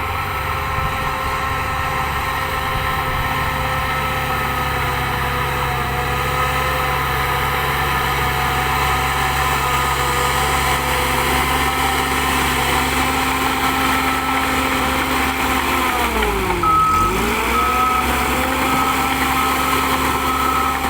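Shantui DH13J bulldozer's diesel engine running steadily. About three-quarters of the way through, its pitch dips sharply and climbs back, and a high beep starts repeating about once a second.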